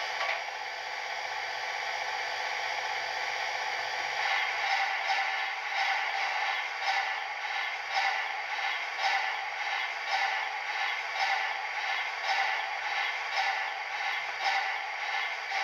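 Steam-locomotive sound effects from the ESU LokSound decoder of an HO scale Rivarossi Blue Ridge 2-6-6-6 model, played through its onboard speaker. A steady hiss runs throughout, and about four seconds in a regular mechanical beat of about two a second joins it.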